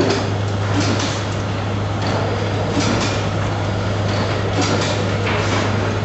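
A steady low hum with scattered faint clicks and knocks over a background of noise.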